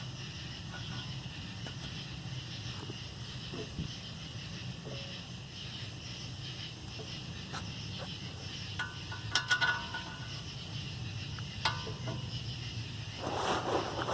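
Small sharp metallic clinks, a quick cluster about two-thirds of the way through and one more shortly after, as the steel hub bolts are handled and started by hand on the wheel hub, with a brief rustling scrape near the end over a steady low hum.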